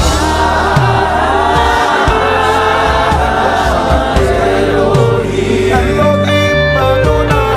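Live gospel worship music: a choir of voices holding long sung notes over a band accompaniment with a moving bass line.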